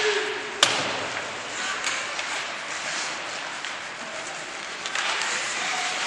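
Ice hockey play on a rink: skates scraping the ice over a low arena murmur, with one sharp clack of stick on puck about half a second in. The hiss swells slightly near the end.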